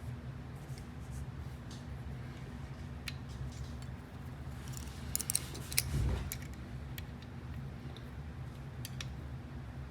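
Light metallic clicks and taps of small lock-picking tools and a padlock being handled, with a cluster of clicks about five to six seconds in, over a steady low hum.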